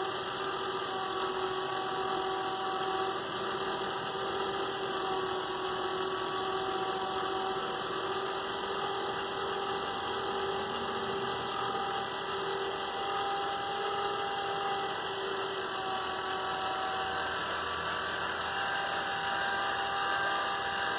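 Rotork IQTM 2000 electric valve actuator's motor and gearbox running on its internal battery backup, driving a butterfly valve closed after a simulated power loss: a steady whining hum that cuts off at the very end as the valve reaches fully closed.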